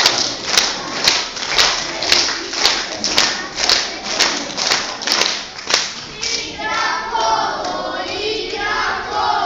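Children's folk dance group keeping time with sharp, even beats about two a second. About six and a half seconds in, the beats stop and the group starts singing together without instruments.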